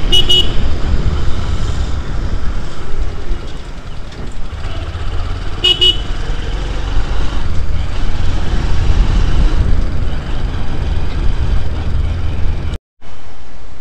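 Motorcycle riding through town traffic: steady engine noise and wind rumble on the microphone, with a short horn toot at the start and another about six seconds in. The sound cuts out for an instant near the end.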